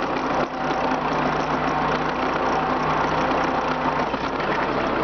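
Tractor engine idling steadily, with one short knock about half a second in.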